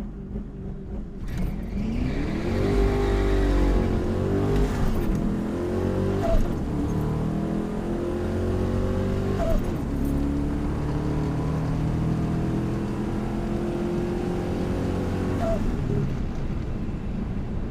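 Turbocharged truck engine launching from the line about two seconds in and running hard through the gears on a quarter-mile drag pass, heard from inside the cab. The engine note climbs in pitch and drops back at each upshift, several times over.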